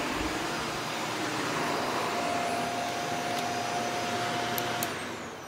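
Shark vacuum cleaner running steadily on carpet. Near the end there are a couple of clicks, then the motor is switched off and starts to wind down with a falling whine.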